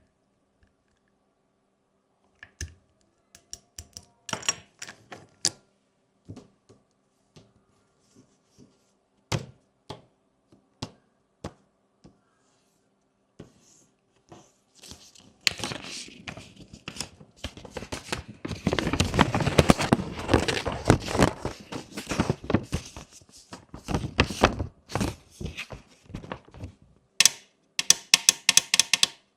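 Plastic fidget toy pieces being handled. Scattered sharp clicks and knocks come first, then a long stretch of dense rustling and rattling, and a quick run of clicks near the end.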